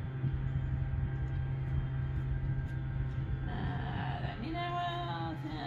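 A steady low drone throughout. About three and a half seconds in, a person's voice comes in over it with a few drawn-out, pitched, hummed notes.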